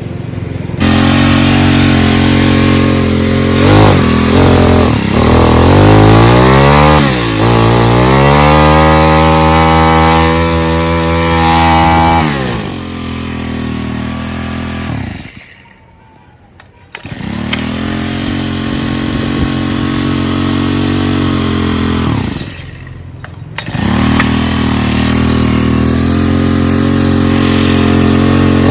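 Small two-stroke chainsaw engine running, blipped up and down a few times and then revved high and held for a few seconds before dropping back. Around the middle it goes quiet for a second or two, then runs steadily again, with another short dip in the sound later on.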